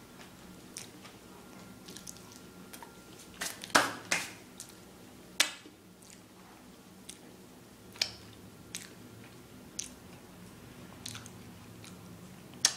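A person chewing a mouthful of bombolone, an Italian filled doughnut, with wet mouth sounds and scattered sharp clicks and smacks, the loudest a few seconds in. Near the end he sucks the sugar off his fingers.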